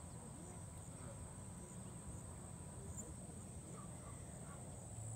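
Faint rural ambience: a steady high-pitched insect trill, typical of crickets, with a few faint distant bird calls.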